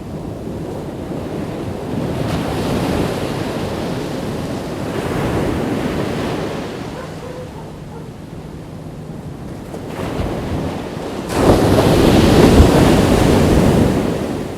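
Ocean surf on a beach: waves rushing in and washing back in swells, the loudest coming in suddenly about eleven seconds in and dying away near the end, with wind on the microphone.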